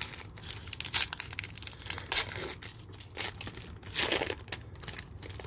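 Foil wrapper of a Panini Prizm football card pack crinkling in the hands and tearing open, a run of sharp crackles that is loudest about two seconds in and again around four seconds in.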